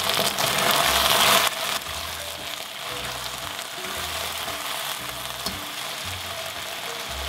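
Strips of beef sizzling in a hot wok on high heat, turned and stirred with tongs. The sizzle is loudest for the first second and a half, then settles lower.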